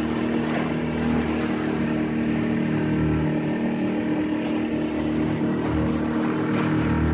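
Engine of a small open tour boat running steadily under way, with water and wind noise.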